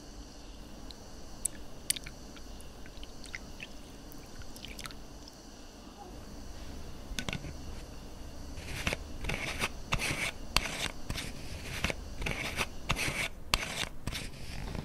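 Aluminium screw cap being twisted onto a plastic bottle, its threads scraping in short crunchy strokes, about two to three a second, in the second half. Before that, only scattered faint clicks.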